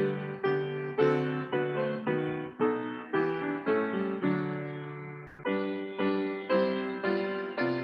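Piano playing a slow hymn-like passage in block chords, each chord struck and fading before the next, about one to two chords a second.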